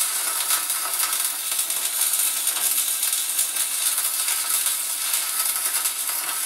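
Stick (arc) welding on steel: the electrode's arc crackling and sizzling steadily and unbroken, a dense fine crackle.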